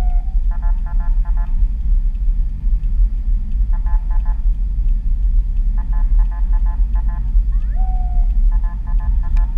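Car cabin road rumble while driving, with repeated short bursts of rapidly pulsing electronic siren tones and two brief rising whoops from the escorting police patrol car's siren.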